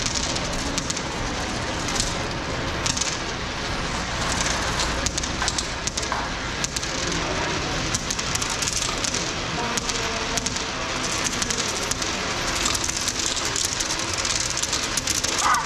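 Several coins rolling and spiralling around a large vortex coin funnel, a continuous crackling rattle full of small clicks.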